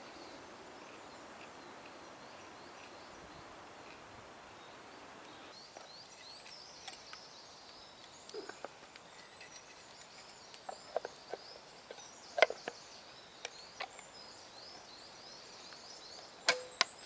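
Scattered sharp clicks and knocks from handling a stainless steel mess tin and its bamboo lid, starting about a third of the way in, with the loudest knocks about two-thirds through and near the end.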